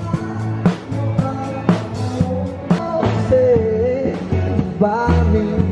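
Music with a steady beat, a sharp drum hit about once a second over a bass line, and a singing voice that comes in around three seconds in and again near the end.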